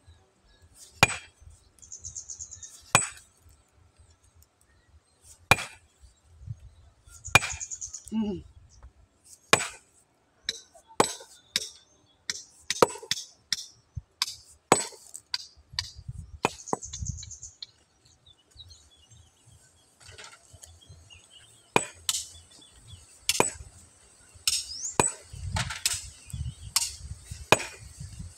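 Long-handled hammer striking a large stone again and again: sharp, hard knocks at irregular intervals of one to two seconds, coming faster in the middle, with a break of a few seconds about two-thirds of the way through.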